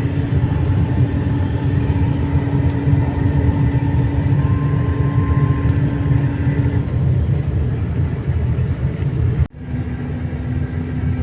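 Highway bus running at speed: steady engine and road rumble with a droning tone. It drops out briefly about nine and a half seconds in, then resumes with the drone slightly lower.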